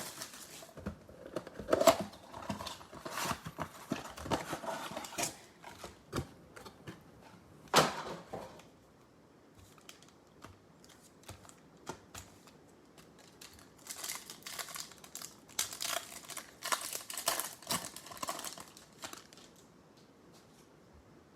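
Baseball card mega box and its foil packs being torn open and handled: crinkling wrappers, tearing and small clicks. It comes in two spells with a few quieter seconds between.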